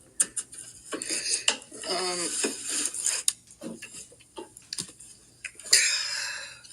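Small hard objects clinking and clattering as they are handled and set down, like dishes or utensils, with a short wavering squeak about two seconds in.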